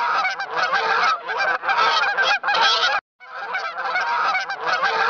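A flock of swans calling, a dense run of overlapping honks. The sound cuts out for a moment about three seconds in, then carries on.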